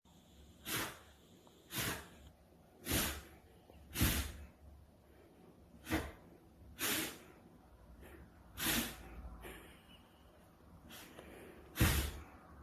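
Chow Chow dog sneezing eight times, short sharp sneezes about a second apart at first and then with longer gaps; the last one, near the end, is the loudest.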